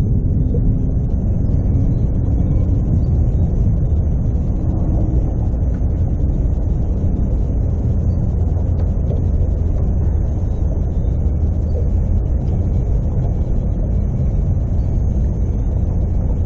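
Wind buffeting the boat-mounted camera's microphone: a loud, steady low rumble.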